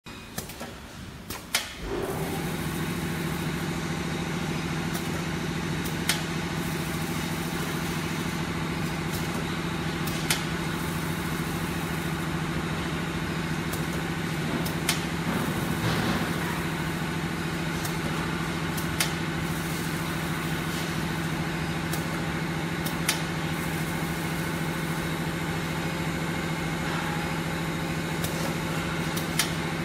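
Photoelectric seed counting machine switching on about two seconds in, then running with a steady, even hum. A sharp click comes every four seconds or so.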